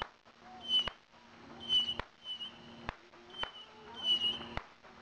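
A high chirping call repeated about once a second, short notes with a slight bend in pitch, from an animal calling at night. Under it runs a low steady hum, and sharp clicks fall every second or so.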